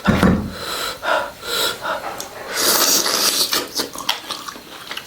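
A person's heavy breathing and sharp hissing breaths through the mouth while eating spicy food, with short mouth noises between them. The longest, loudest hiss comes a little past halfway.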